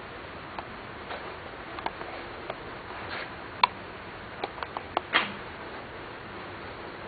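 Scattered light clicks and taps at irregular times over a steady hiss, with a small cluster of sharper clicks a little past the middle.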